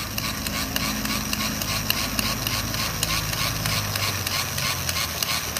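A canal boat's engine running low and fading away about four seconds in, over a steady hiss of churned water.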